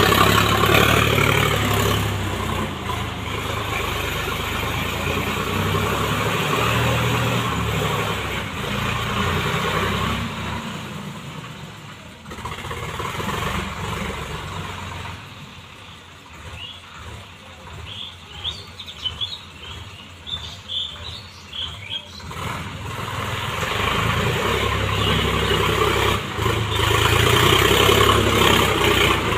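Sonalika tractor's diesel engine running steadily under load while pulling a rotary tiller through loose soil. It is loud at the start and end and drops much quieter in the middle, when the tractor is farther off. A few short high chirps come in about two-thirds of the way through.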